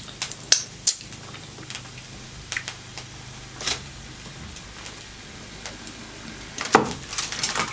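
Scattered light clicks and taps of hands handling snow crab legs and a plate on a foil-covered tray, with a denser burst of clattering near the end.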